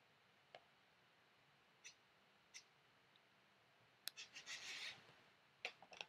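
Faint computer mouse clicks over quiet room tone: single clicks about half a second, two and two and a half seconds in, then a quick cluster of clicks with a short scratchy rustle about four seconds in, and a couple more clicks near the end.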